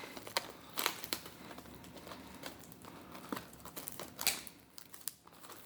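Packaging of a trading-card box being cut and opened with a knife: intermittent crinkling and rustling of plastic and cardboard, with a few sharper crackles.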